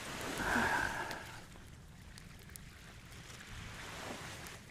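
Gentle waves washing on a sandy shore, as a low, steady hush. A brief louder sound swells over the first second and a half.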